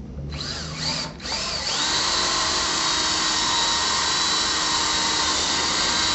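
Cordless drill pre-drilling a hole through a shutter's box-out frame and drywall into the wall stud. It gives a few short spins as the trigger is feathered to start the bit, then runs steadily from about two seconds in.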